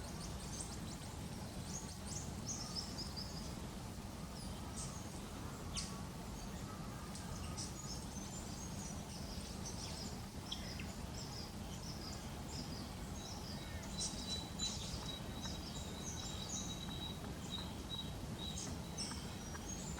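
Eastern spinebills and other birds calling, a scatter of short, high chirps throughout over a steady low background noise. A thin, steady high note joins about two-thirds of the way in and runs for several seconds.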